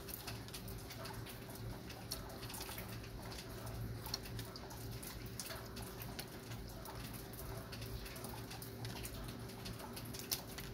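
Light rain falling, with irregular drops ticking and pattering over a steady hiss. A faint steady low hum runs underneath.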